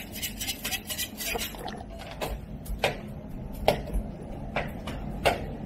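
Metal bench scraper cutting through pizza dough and knocking and scraping on a marble counter: a string of short, sharp scrapes and taps at uneven intervals, roughly one every half second to second.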